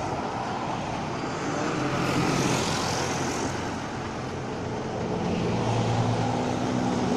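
Road traffic going past close by: vehicles pass one after another, swelling about two seconds in and again near six seconds, over a steady low engine hum.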